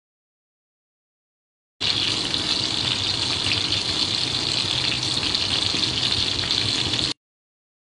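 Breaded chicken skewers sizzling in a pan of hot frying oil: a steady hiss that starts abruptly about two seconds in and cuts off sharply near the end.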